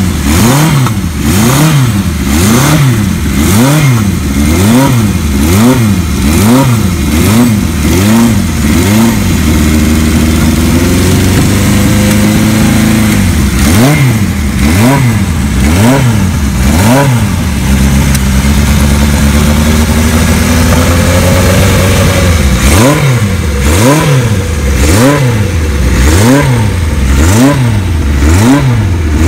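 1975 Kawasaki Z1 900's air-cooled inline four-cylinder engine running cold on choke, its throttle blipped about once a second so the revs rise and fall in even pulses. Twice it settles for a few seconds into a steadier, fast idle before the blipping starts again.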